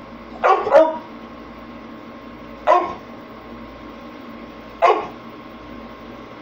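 Pit bull barking: a quick double bark about half a second in, then two single barks about two seconds apart.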